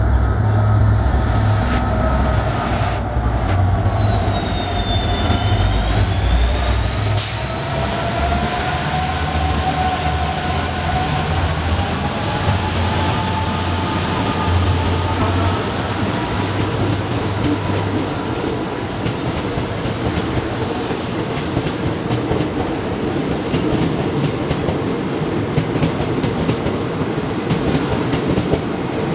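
EMD WDP-class diesel locomotive's engine pulling hard up a gradient, its deep drone passing about five or six seconds in. The drone fades over the following seconds as the passenger coaches roll past, wheels clacking over rail joints with a high, steady squeal.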